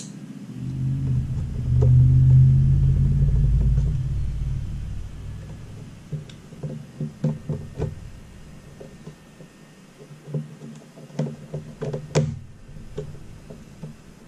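A low rumble swells and fades over the first five seconds or so, then a run of small sharp clicks and taps as small hardware is picked out of a clear plastic parts box.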